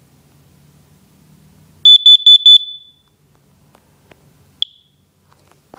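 Kidde Nighthawk smoke and carbon monoxide combination alarm sounding four rapid, very loud high-pitched beeps, the end of its push-button self-test. A single short chirp follows about two seconds later, marking the end of the test.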